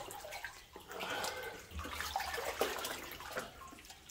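Water sloshing and splashing irregularly as a person wades through a flooded mine tunnel.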